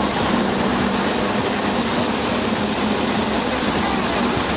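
Engine of a se kang two-wheel farm tractor running steadily while under way, a constant hum under a loud, even rushing noise.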